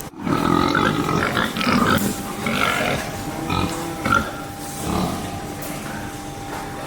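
Slaughterhouse livestock calling in short, irregular cries, over a steady mechanical hum.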